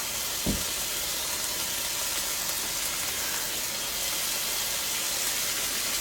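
Hamburger steaks frying in a cast iron skillet on high heat: a steady sizzle, with one soft knock about half a second in.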